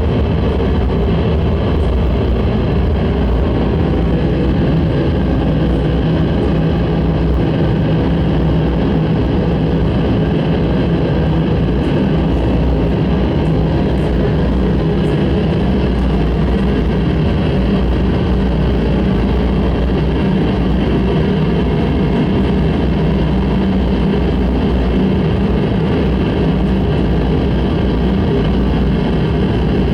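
Noise-music performance: a loud, unchanging wall of dense electronic noise, heaviest in the low end, with a few faint steady tones running through it.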